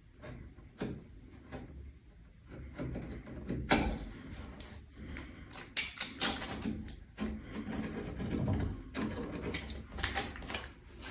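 Masking tape being peeled back, crinkled and pressed down again around a metal door hinge, with scattered light clicks and rustles.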